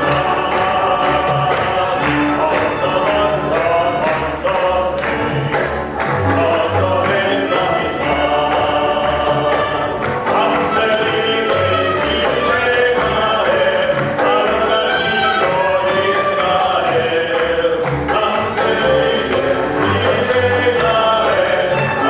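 Music: a group of voices singing together with instrumental accompaniment, and regular low notes and ticks that keep a steady beat.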